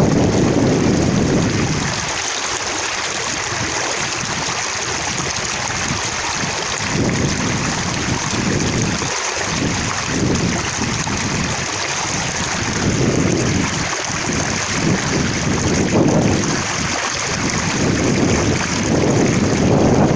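Water splashing and spattering in a steady rush of droplets, with heavier, deeper surges about the first two seconds and again near the end.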